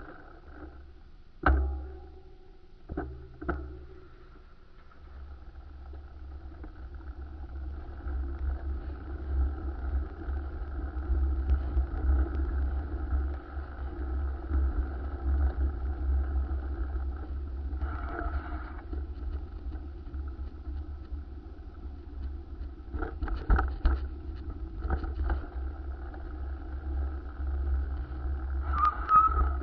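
A steady engine hum with a heavy low rumble, like wind on the microphone while moving, rising in after a few seconds. A few sharp knocks come near the start and again late on.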